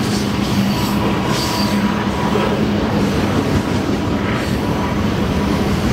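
Canadian Pacific grain train rolling past, a steady rumble of wheels on the rails.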